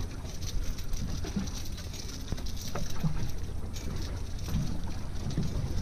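Steady low rumble of wind and water around a small center-console fishing boat drifting at sea, with a few faint clicks.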